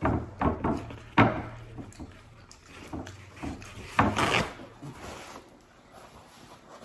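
A few sharp knocks and rubbing from handling things at a table, then a rustle about four seconds in as paper towels are pulled off a roll and torn.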